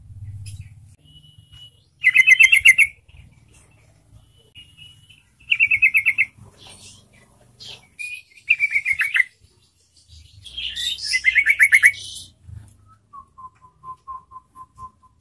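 Yellow-vented bulbul (trucukan) singing in full voice: four loud, bubbling bursts of rapid chirping notes, each lasting about a second, with pauses between them. Near the end comes a softer, lower run of quick even ticks, about four a second.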